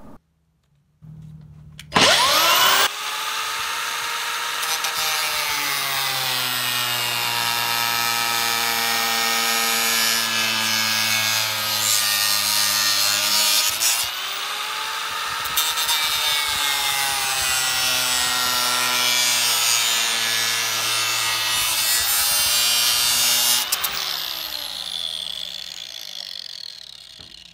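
Angle grinder switched on and whining up to speed about two seconds in, then running while cutting through PVC pipe tee fittings, its pitch sagging and recovering a few times under load. Near the end it is switched off and winds down with a falling whine.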